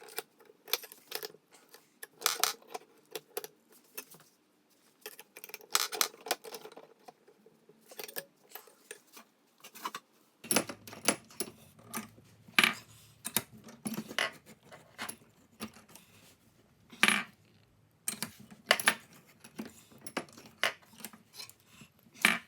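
Irregular light metallic clinks and taps, several a second with a few sharper strikes, from steel tools and a knife blank being handled. The sound falls into three stretches that change abruptly about halfway through and again near the end.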